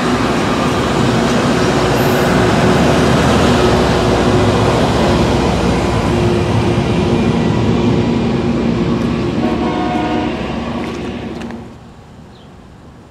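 LORAM rail grinder train passing and moving away: a loud, dense rumble of its engines and wheels on the rails, with steady engine tones through it. The noise falls off sharply near the end to a much quieter background.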